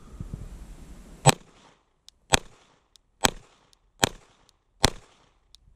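A 9mm Glock 17 pistol fired five times in slow, deliberate single shots, a little under a second apart. Faint small clicks fall between some of the shots.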